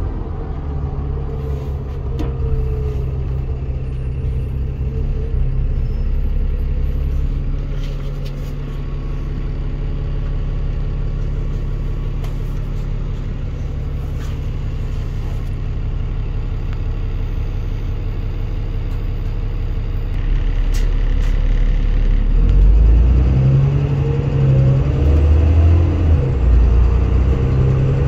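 Dennis Trident 2 double-decker bus heard from the upper deck, its diesel engine running in a steady drone. Near the end the engine gets louder and its note rises as the bus accelerates.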